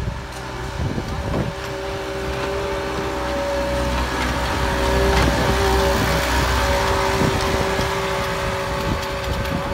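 Miniature narrow-gauge locomotive 'Neptune', a steam-outline engine that is diesel-hydraulic under the skin, running past with its train. Its engine hum and a steady two-note whine build to their loudest about halfway through as it passes close, then ease slightly, with scattered clicks along the way.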